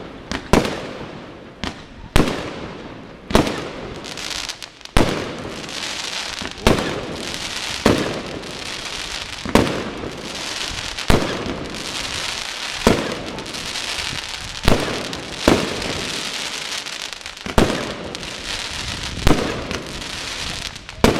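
Fireworks bursting in quick succession, a sharp bang about every second or so, with dense crackling and fizzing between the bangs.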